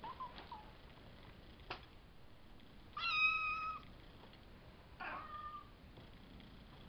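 Five-week-old Savannah kittens mewing while they play: a few small short mews at first, then one loud, high, steady mew held for almost a second about three seconds in, and a shorter falling mew about five seconds in. A light click comes just before two seconds in.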